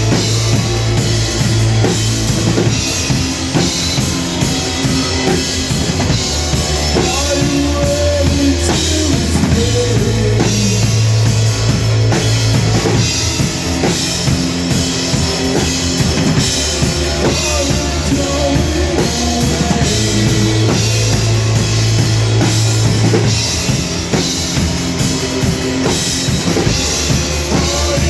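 Live rock band playing an instrumental stretch without vocals: a drum kit keeps a steady driving beat under low bass notes that change every few seconds.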